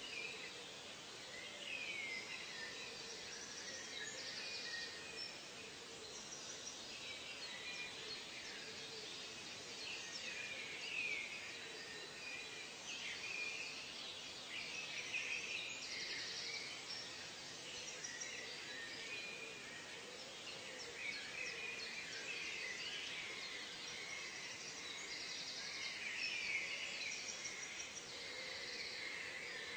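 Natural ambience of many birds calling, with short overlapping chirps and whistles, mixed with short high buzzing calls over a steady hiss.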